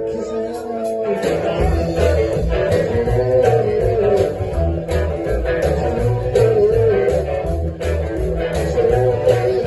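Live blues band playing an instrumental passage: a wavering guitar lead over a steady bass line and drum beat.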